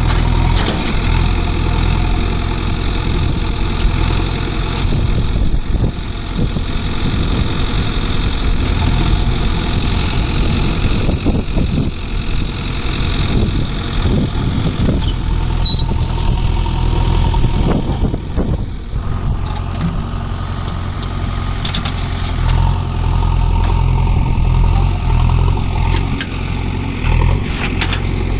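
Diesel engine of a JCB backhoe loader running steadily, with scattered knocks and clatter through the middle stretch.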